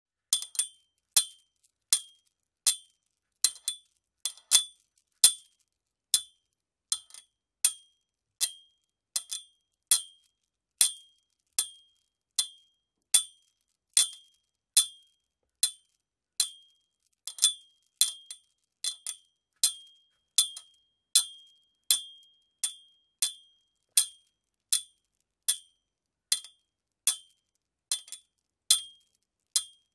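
Flagpole clinking: sharp metallic clinks against the pole a little more than once a second, some coming in quick pairs, each with a short high ring.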